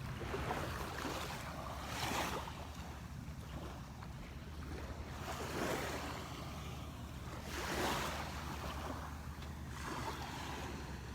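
Small waves washing onto the sand on a calm shore, their hiss rising and falling every couple of seconds, over a steady low rumble of wind on the microphone.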